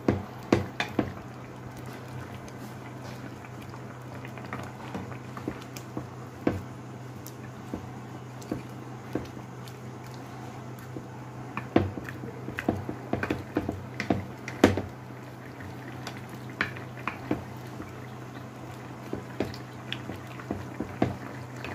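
Fish curry gravy boiling in a nonstick pan, with scattered sharp pops and clicks and the occasional knock of a wooden spoon against the pan, over a steady low hum.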